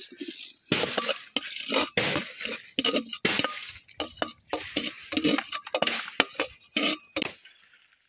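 Steel plate knocking and scraping against a metal cooking pan as boiled potato cubes are tipped in, an irregular run of clinks and clatters that stops shortly before the end.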